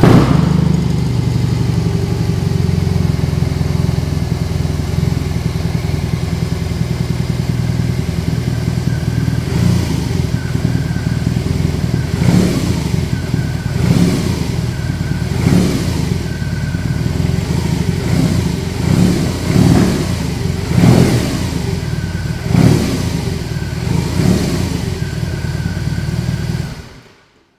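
BMW R18 Bagger's 1802 cc boxer twin, fitted with a Vance & Hines aftermarket exhaust, catches and idles steadily. From about ten seconds in it is blipped on the throttle a dozen or so times, each rev rising and falling back to idle. It is switched off shortly before the end.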